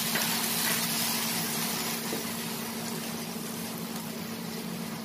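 Tomato purée and sliced onions sizzling in a hot non-stick pan as a spatula stirs them together; a steady sizzle that slowly dies down.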